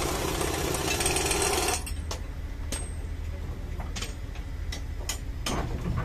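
Excavating chain being joined on an RM900 ballast cleaning machine: a loud burst of rapid rattling hammering for about two seconds, then a handful of sharp metal clanks, over the steady low hum of the machine.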